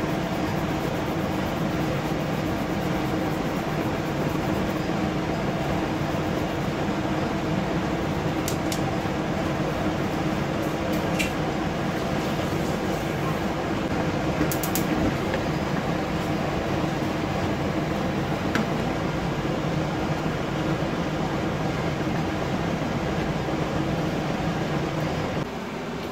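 A fan running with a steady hum, with a few light clicks of a spatula against the pan.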